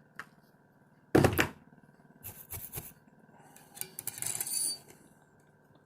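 Small hard objects dropped and clattering on a work surface: one sharp loud clack about a second in, a few lighter clicks, then a longer scraping rattle around four seconds in.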